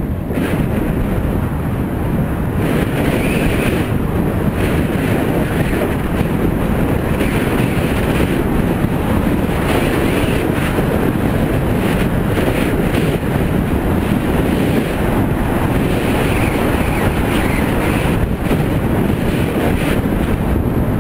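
Steady wind noise buffeting the microphone of a camera on a moving bicycle, with the rush of the road beneath.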